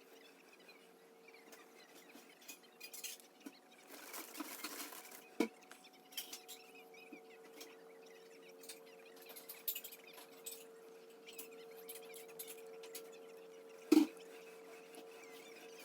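Quiet eating and tableware-handling sounds: small clicks and rustles, a brief scrape about four to five seconds in, and two sharp knocks, the louder one near the end, over a steady low hum.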